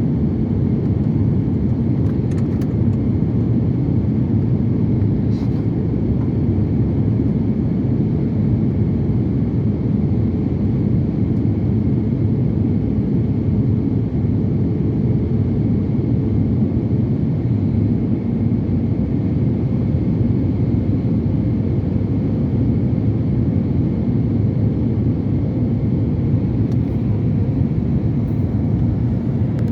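Steady low rumble of an airliner's cabin noise, the engines and airflow heard from inside the passenger cabin, even and unchanging throughout.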